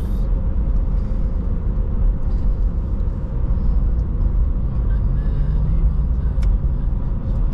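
Car driving: a steady low rumble of engine and tyre noise, with a faint steady hum and a single sharp click late on.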